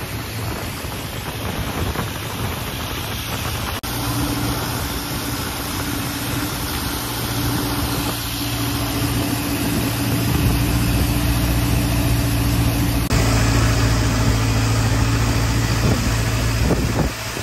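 A boat engine running steadily with a constant hum. The sound changes abruptly twice, about four and thirteen seconds in.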